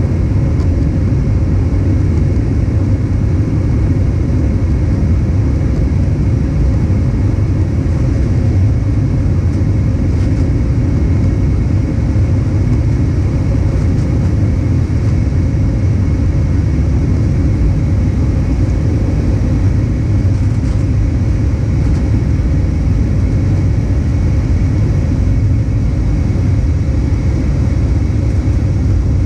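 Steady cabin noise of an Airbus A320 in flight: a constant low rumble of engines and airflow, heard from a window seat over the wing.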